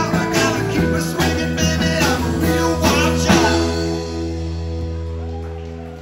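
Live rock band of electric guitars, bass, drums and singer playing, with drum hits until about three and a half seconds in; then a final chord rings out and slowly fades.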